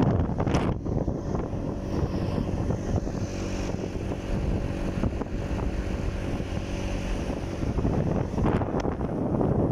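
Wind buffeting the microphone on a moving motorcycle, with the engine's steady hum faintly underneath.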